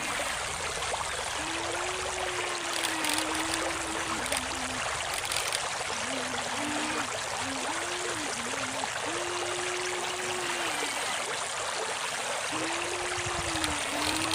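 Flowing river water, over which the small electric motors of a radio-controlled toy excavator hum in a steady tone. The hum starts and stops several times and shifts between a higher and a lower pitch as the machine moves.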